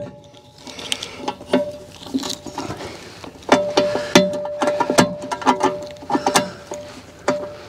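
A padlock being fitted through the hasp of a pay box and worked by hand: a run of small metallic clicks and taps. A faint steady tone comes in for a few seconds in the middle.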